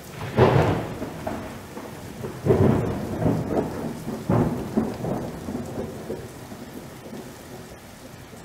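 Thunder rumbling over steady rain: three peals about two seconds apart, each breaking sharply and then dying away.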